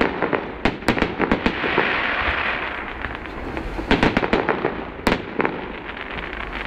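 Fireworks display: sharp bangs in quick clusters, with a crackling hiss in between. The bursts thin out over the last second or so.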